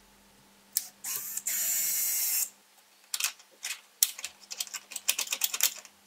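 A cordless drill/driver runs for about a second and a half, driving a screw that fixes a metal rod bracket to plywood. From about 3 s come quick irregular clicks and rattles as the steel rod is turned by hand in its bracket and its plastic gear turns, the mechanism still without lubrication.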